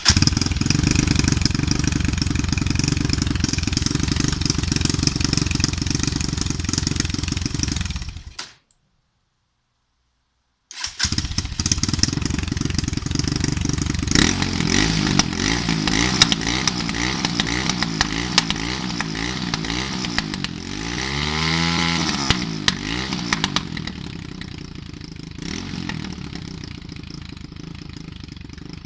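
Irbis TTR 250 dirt bike's single-cylinder four-stroke engine starting and running, healthy after a complete engine overhaul. The sound cuts off about eight seconds in, then after a couple of seconds of silence the engine runs again, its note swelling and falling about two-thirds of the way through before settling to a quieter, steady run.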